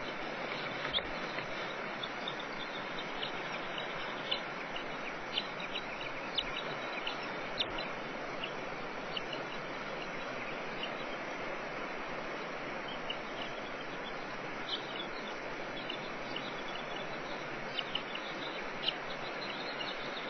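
Scattered short, high-pitched bird chirps over a steady rushing background noise.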